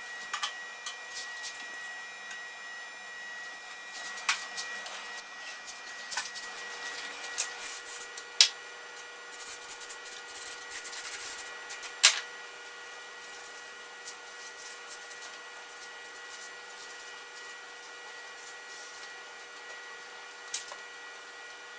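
Hand work in a shop: rubbing and scraping with scattered sharp clicks and knocks, busiest about nine to twelve seconds in, over a steady faint high-pitched hum.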